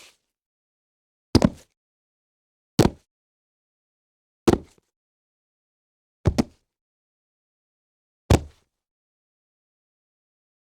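Sound-effect recordings of a human body falling onto a floor: five separate heavy thuds, one every 1.5 to 2 seconds, some with a quick second impact, and dead silence between them.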